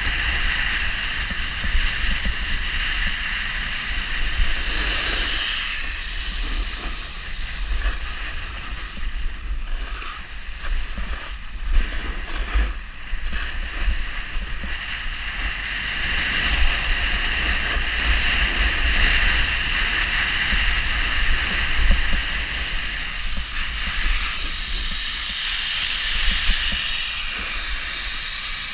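Snowboard edges scraping and hissing over groomed snow during a continuous downhill run, with wind buffeting the camera microphone. The hiss swells at turns, about five seconds in and again near the end.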